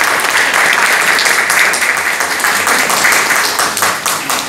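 Audience applauding: loud, dense clapping.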